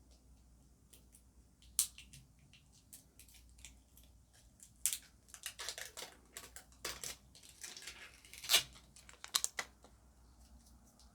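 Cosmetic packaging being worked open by hand with difficulty: scattered clicks, then a busy stretch of rustling and sharp snaps from about five seconds in until near the end.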